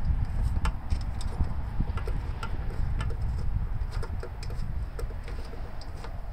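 Ratchet wrench clicking in short, irregular strokes as a bolt is tightened, over a steady low background rumble.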